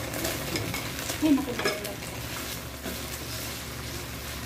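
Beef chunks sizzling in a hot non-stick pan as they are scraped off an enamel plate with a spatula and stirred. A few clattering knocks of the spatula against plate and pan, the loudest about a second in.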